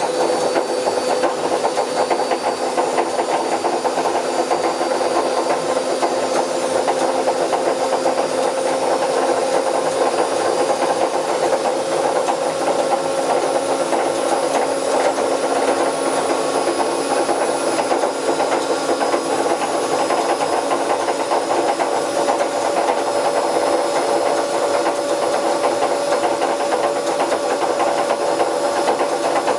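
Bauknecht WA Plus 844 washing machine running with its drum turning: a steady hum over a wide rushing noise, the pitch creeping slowly upward. This is the machine with a damaged drum bearing.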